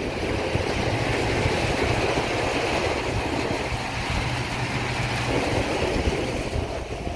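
Steady low engine hum under wind noise on the microphone, the hum fading out about five and a half seconds in.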